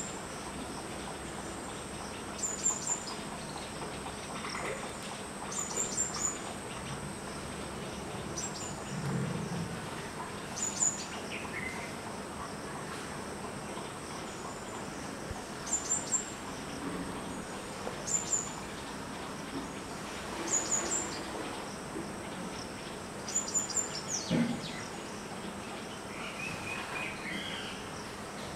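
Pond-side ambience: a steady high insect drone, with short high bird chirps repeating every two to three seconds.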